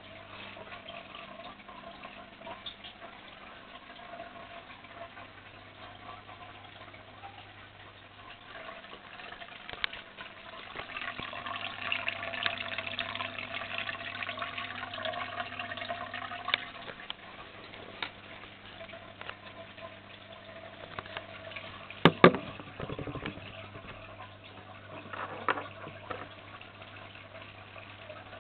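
Aquarium filter running: a steady trickle of water over a low electrical hum, the water sound swelling for several seconds in the middle. A couple of sharp knocks come about three-quarters of the way through.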